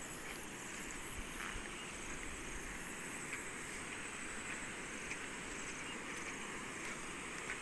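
Faint, steady rush of a river, with no distinct events.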